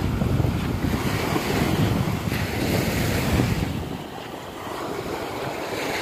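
Small sea waves breaking and washing up a sandy shore, with wind buffeting the microphone. The wind rumble eases for a second or so about four seconds in, then returns.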